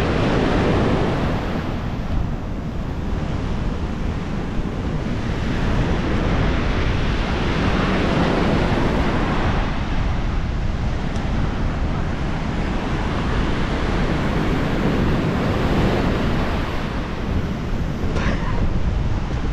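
Sea surf breaking on the beach at high tide, mixed with strong wind buffeting the microphone, swelling and easing in slow surges.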